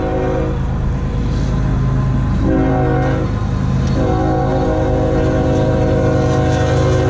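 Diesel freight locomotive's multi-chime air horn sounding over the steady rumble of its engine. One blast ends about half a second in, a short blast follows a couple of seconds later, and a long blast starts about four seconds in and holds past the end. This is the short-then-long close of the grade-crossing signal.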